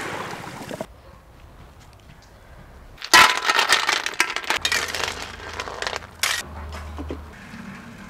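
Sea snail shells poured into a shallow metal pan, clattering against the metal and each other. The clatter starts suddenly about three seconds in, with a sharp knock a little after six seconds.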